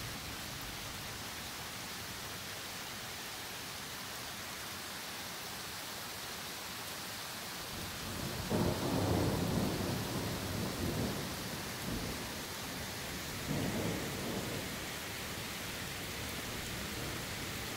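Steady rain falling on trees, with a long roll of thunder about halfway through and a second, shorter rumble a few seconds later.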